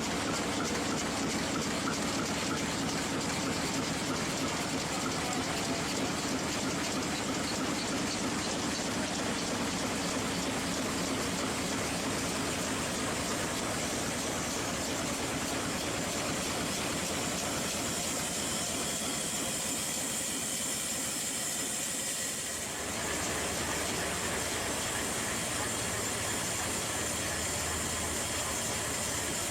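1917 MAN six-cylinder four-stroke submarine diesel engine running steadily, a dense loud mechanical noise. It dips and changes briefly about two-thirds of the way through, then runs on.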